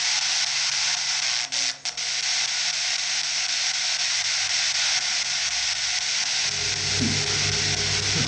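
Steady, loud static hiss that cuts out briefly twice about one and a half seconds in; a low hum joins it near the end.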